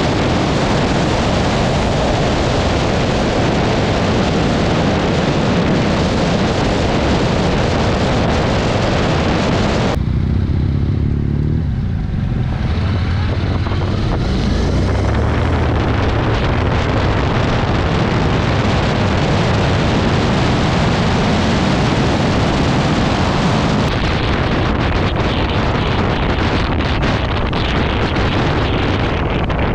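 Wind rushing over the microphone of a riding motorcycle, with the engine running underneath. About a third of the way in, the wind suddenly drops away as the bike slows for a junction, leaving the low engine sound, then the wind builds again as it picks up speed.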